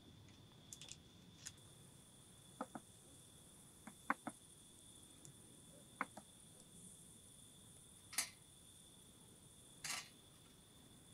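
Kitchen knife slicing on a cutting board: scattered short knocks as the blade meets the board, some in quick pairs and threes, over a faint steady insect trill.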